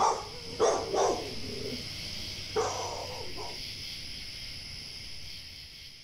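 A dog barking about four times in the first three seconds, over a steady high-pitched background drone that fades out near the end.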